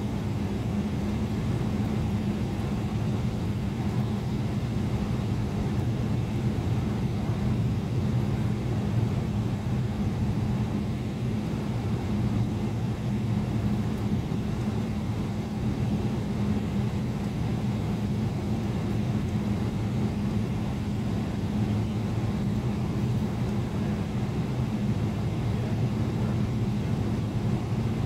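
Steady drone of a Boeing 777's jet engines at low taxi power, heard inside the passenger cabin, with a constant low hum.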